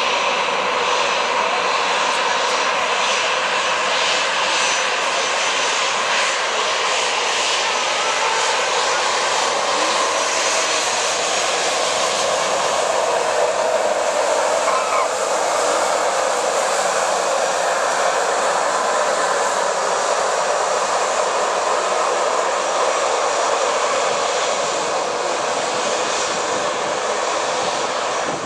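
Airbus A320-214's CFM56 turbofan engines running at taxi power as the airliner taxis past: a steady, even jet engine noise that fades slightly near the end.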